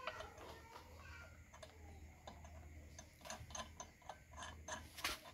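Light metallic clicks of steel wheel nuts being spun onto the wheel studs by hand, scattered at first and then coming in a quick run, the loudest near the end.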